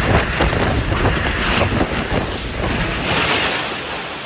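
Storm wind roaring with rapid clattering and knocking, easing slightly near the end.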